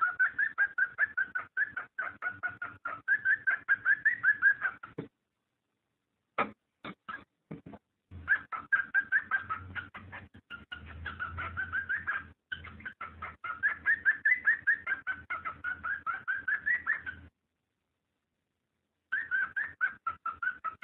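Cockatiel mating calls: rapid chirping, about six notes a second, in bouts of several seconds broken by silent gaps, with a few single chirps between the first two bouts.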